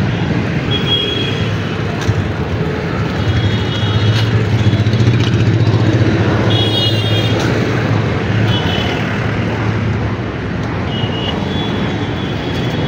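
Busy street traffic: motorcycle and car engines running in a steady hum, with several short high-pitched horn beeps spread through.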